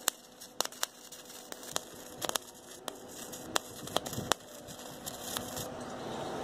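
Wire-feed welding gun arc crackling on stainless steel tubing, a steady sizzle with irregular sharp pops of spatter. The arc cuts off near the end.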